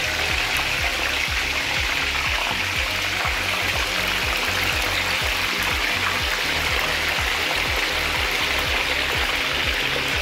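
Marinated chicken pieces deep-frying in hot oil: a steady bubbling sizzle. Background music with a steady beat plays underneath.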